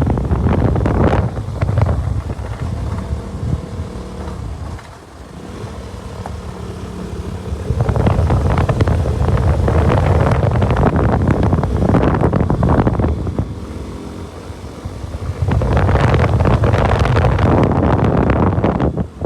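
KTM RC 200 single-cylinder motorcycle being ridden, its engine mostly buried under heavy wind buffeting on the microphone. The noise eases twice, about five seconds in and again around fourteen seconds, letting a steady engine note through before it swells again.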